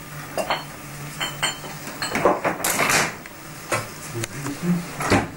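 Washing up at a kitchen sink: scattered clinks and knocks of glasses and dishes, with a denser noisy stretch about two to three seconds in.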